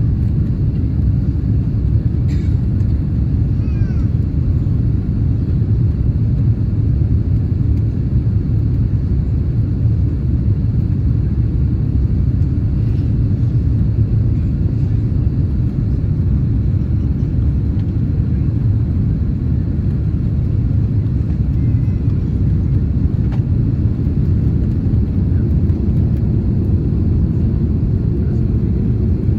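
Steady low rumble inside the cabin of an Airbus A330-300 on final approach: engine and airflow noise heard from a window seat behind the wing.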